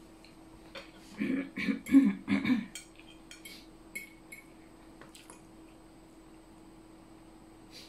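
A quick series of loud vocal sounds from the eater about a second in, then light clicks of a spoon against a ceramic plate as she picks at the food.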